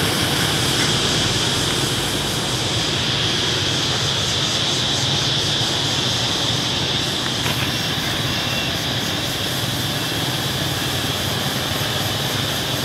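Steady street traffic noise, an even, unbroken rushing din of passing motorbikes with no single vehicle standing out.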